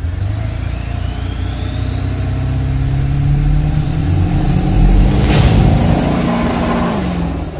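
Intro sound effect of an engine revving with a high turbo whine that climbs steadily in pitch over about five seconds, cut by a sharp whoosh about five seconds in; the engine note drops near the end.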